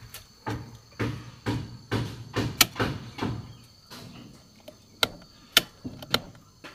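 Irregular clicks and knocks of hands working at an electrical distribution board and its metal panel door, with a few sharper clicks near the middle and towards the end.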